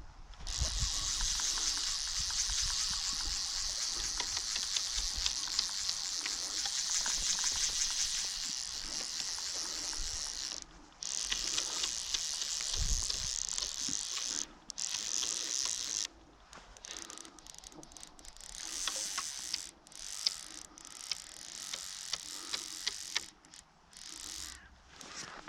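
Fishing reel's ratchet clicking rapidly and continuously for about ten seconds, then in short stop-start bursts through the rest.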